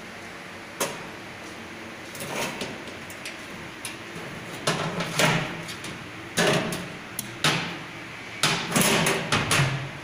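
Irregular clicks, knocks and rubbing noises as the red rotary switch on an ultrasonic humidifier's control panel is turned to switch it on. There is one sharp click about a second in, and the knocks come thickest in the second half.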